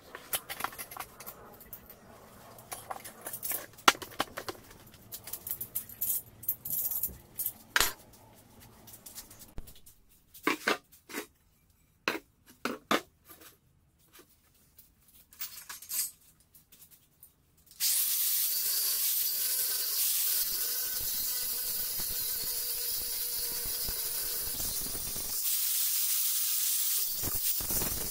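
Scattered clicks and knocks of tools and rubber being handled, then, about two-thirds of the way through, a steady loud hissing grind sets in: an angle grinder working on an aluminium alloy car wheel.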